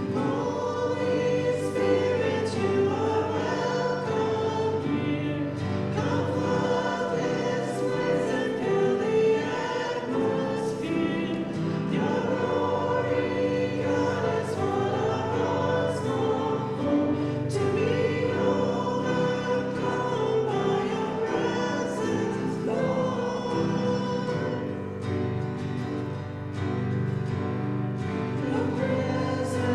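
Music: a group of voices singing with instrumental accompaniment.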